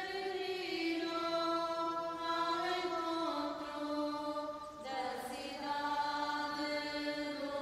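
Background music of wordless choir-like voices holding long, sustained notes. The chord shifts about three seconds in and again near five seconds.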